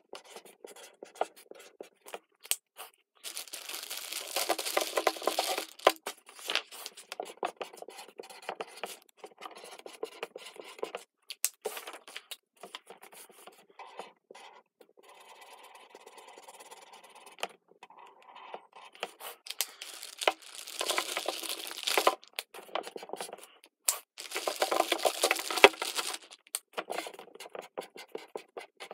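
Felt-tip markers scratching across construction paper in quick back-and-forth strokes, in several spells of drawing with quieter pauses between.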